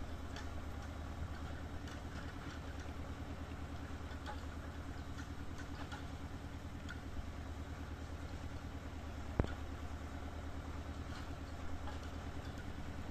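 An engine running steadily at a low pitch, with faint scattered ticks over it and one sharp knock about nine seconds in.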